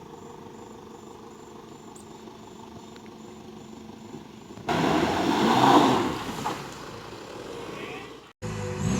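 Faint steady outdoor background, then a sudden louder rushing noise of a vehicle driving, which fades off. Plucked guitar music starts near the end.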